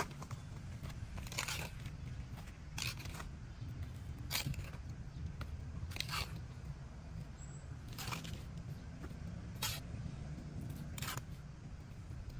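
Small hand trowel scooping loose, dry soil and tipping it into a plastic flowerpot: a short gritty scrape about every second and a half, seven in all, over a steady low rumble.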